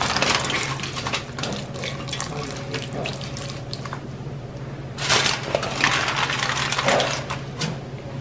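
Broth being poured over a lamb roast in a foil-lined pan, splashing and trickling unevenly, with a steady low hum underneath.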